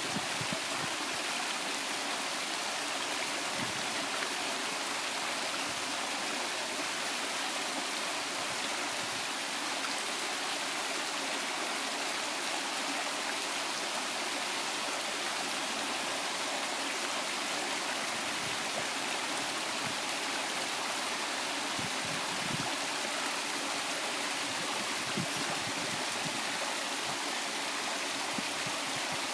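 Waterfall: falling water rushing and splashing in a steady, unbroken noise.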